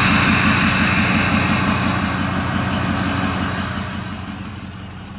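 2005 Ford F-250 running at idle shortly after a cold start, heard at the tailpipe: a steady, evenly pulsing exhaust note with a hiss above it. It grows quieter near the end.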